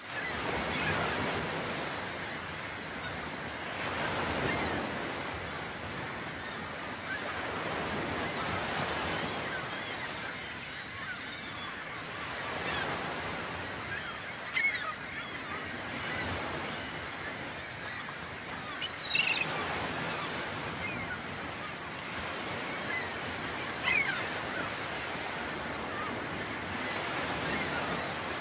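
Steady wash of waves, with three short, high bird calls in the second half.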